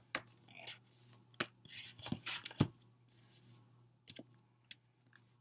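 Photocards and glossy album inserts handled by hand: soft sliding and rubbing of card against card, with a few sharp taps and clicks.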